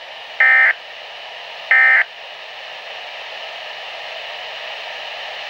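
Two short bursts of a weather-radio EAS (SAME) digital alert header, a harsh buzzing data squawk about a second and a half apart. The header marks the start of a severe thunderstorm warning; steady radio hiss follows, with no 1050 Hz warning tone after it.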